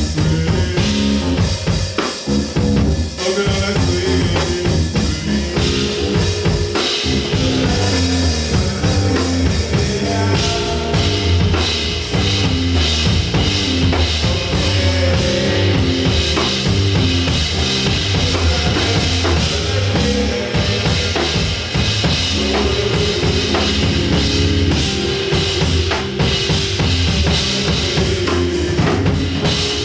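Live band playing a song without a break: a drum kit with bass drum and snare over a moving bass line, loud and continuous.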